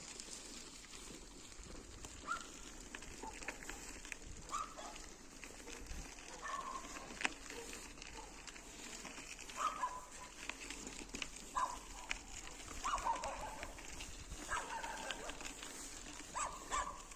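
Faint short animal calls, repeated every second or two, over steady background noise.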